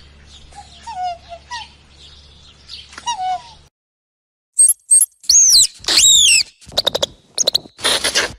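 Blue-winged kookaburra calling: a few short falling notes, repeated several times. About four seconds in it gives way to a meerkat's much louder shrill squeaks that rise and fall, followed by quick clicking calls and harsher noisy calls.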